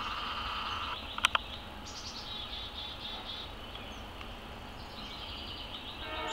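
Forest insects chirring, a steady high buzz that turns into a fast pulsing trill about two seconds in. Two sharp clicks about a second in are the loudest sounds. A distant train horn starts to sound just at the end.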